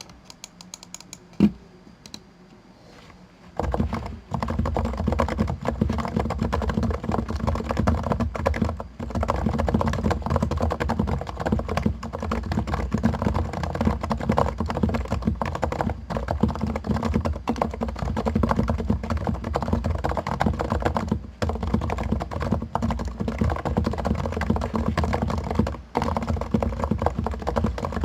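Continuous fast typing on a Topre Realforce R2 PFU Limited Edition keyboard, its 45 g silent electrocapacitive Topre switches lubricated with Tribosys 3204. A single sharp keystroke about a second and a half in, then a steady stream of rapid keystrokes from about three and a half seconds on, with a few brief pauses.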